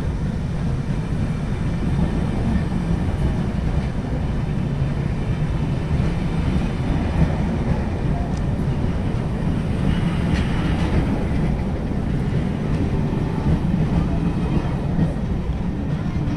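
A train at a station platform, running with a steady low rumble, with a short burst of higher-pitched noise about ten seconds in.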